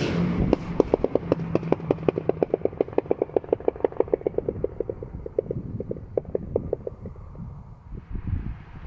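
Straight-piped Škoda Octavia RS 1.8 turbo exhaust crackling on overrun: a rapid train of pops, about eight a second, from its pops-and-bangs map with the catalytic converter removed. The pops trail off after about seven seconds into a low engine rumble with a few scattered thumps.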